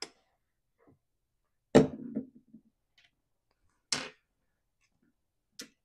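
Small metal chainsaw parts (muffler, cooling plate and bolts) set down on a workbench: four short, sharp clacks spread out, the loudest about two seconds in with a brief ring after it.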